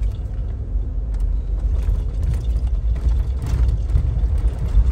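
Land Rover Discovery 2 driving slowly over a rutted, puddled dirt road, heard from inside the cab: a steady low rumble of engine and tyres, with a few light clicks and rattles.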